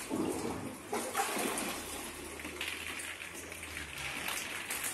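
Ice-cold water splashing and running off a body in several swells as a man climbs out of a chest freezer filled with water for an ice bath.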